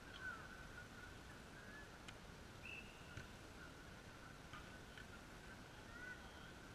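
Near silence: faint outdoor ambience with a steady high hum and a few faint chirps and clicks.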